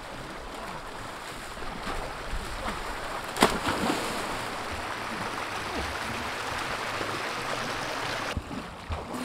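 River water rushing steadily, with one loud splash about three and a half seconds in as a person jumps into the river. The rushing cuts off suddenly near the end.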